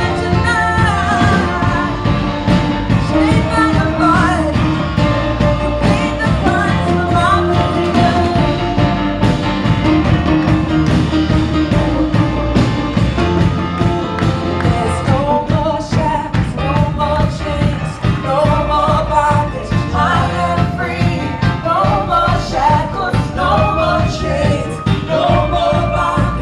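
Live contemporary Christian worship music: a full band with a steady driving beat and singers.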